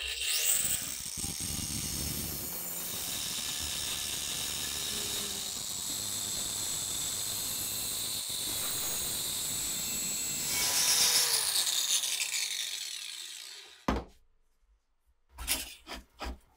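Angle grinder switched on, spinning up and grinding the rusty steel of a cleaver blade with a steady high whine, then winding down a little over ten seconds later. A few sharp metal clicks and clanks of a bench vise being worked follow near the end.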